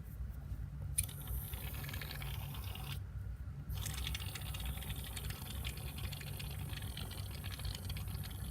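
Aerosol can of shaving cream spraying foam with a hiss, in two long spurts broken by a short pause about three seconds in, after a click as the nozzle is first pressed.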